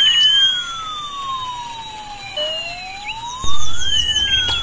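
Toy ambulance's electronic siren wailing, a tone that slowly rises and then falls, about once every four seconds. About three and a half seconds in, a louder low rumble starts under it.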